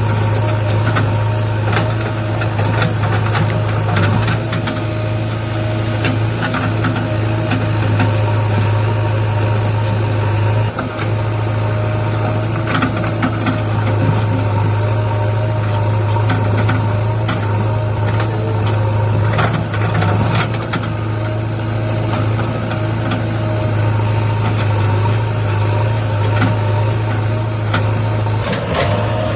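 JCB 3DX backhoe loader's diesel engine running steadily, with a few short knocks scattered through.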